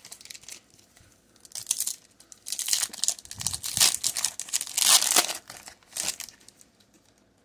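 Foil wrapper of a Pokémon trading card booster pack crinkling and tearing as it is ripped open and the cards are pulled out: a run of sharp rustles starting after about a second and dying away near the end.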